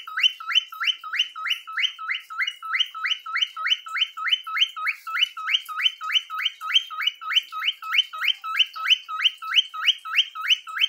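Cockatiel singing: a rapid, repetitive string of whistled notes, each sliding down in pitch, about four a second.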